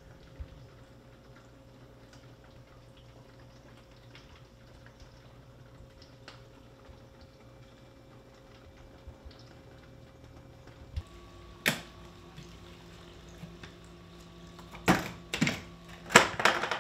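A faint steady hum with a few light ticks, then a different steady hum about eleven seconds in, with sharp knocks and clanks: one soon after, then two together and a loud cluster near the end, as trays and racks are handled at an electric smoker.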